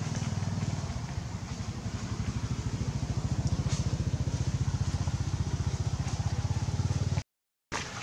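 A small engine, likely a motorbike, idling with a fast, even, low throb. It cuts off abruptly near the end.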